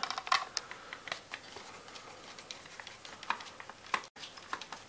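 Small screwdriver undoing the screw on a plastic battery-box cover: faint, scattered clicks and scrapes of the tip in the screw head, along with hands handling the plastic box.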